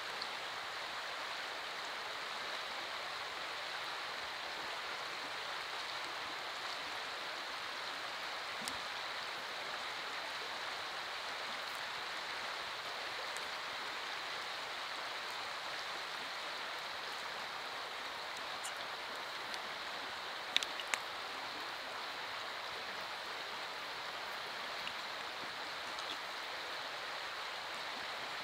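Steady rushing, water-like background noise, with a few light sharp clicks about two-thirds of the way through as the forged steel buckle is handled and fitted onto the leather belt.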